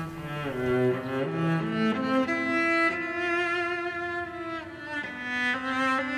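Background score: a slow melody on bowed strings, several notes stepping in the first couple of seconds, then long held notes.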